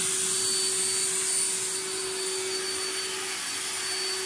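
AccTek AKG1212 CNC router spindle running at speed: a steady high whine over an even rushing hiss.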